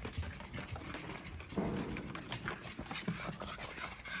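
A pug panting, with many quick clicks and patter from its paws.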